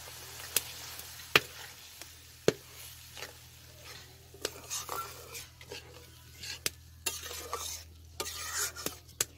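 Steel ladle stirring and scraping through watery masala gravy in a steel kadai, knocking the pan with sharp clinks a few times early on, over a light sizzle of the simmering curry. The gravy has just been thinned with water before the fish goes in.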